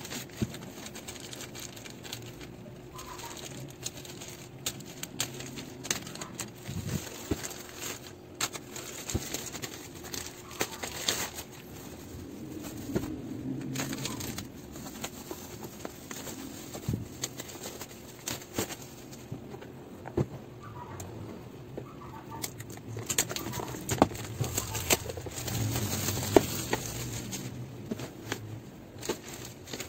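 Plastic packaging being handled: a courier pouch is peeled and torn open, then bubble wrap is crinkled and pulled off, with many small clicks and taps. Sharper knocks come near the end as the box inside is handled. A faint steady hum runs underneath.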